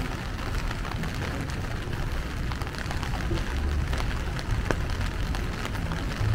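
Steady rain, with many small drops ticking close by over a low rumble.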